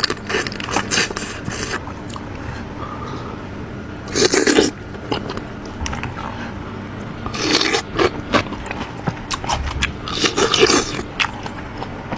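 Close-miked eating sounds of crab in Padang sauce being picked apart by hand: the shell scrapes and cracks in several loud bursts, with smaller clicks and wet sounds between.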